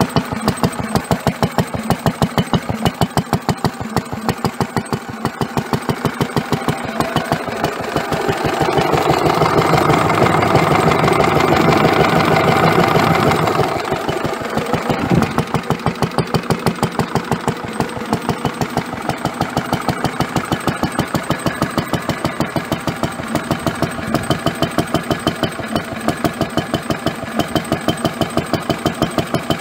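1945 Lister D single-cylinder petrol stationary engine running steadily, driving a Lucas dynamo by belt, its firing strokes beating in an even, rapid rhythm. A louder rushing noise rises over the beat for several seconds in the middle, and there is one sharp knock a little after.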